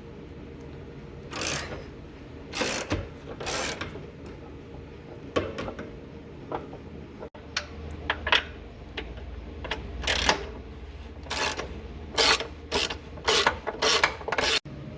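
Hand ratchet wrench clicking in short strokes as bolts are backed off, the strokes coming quicker near the end.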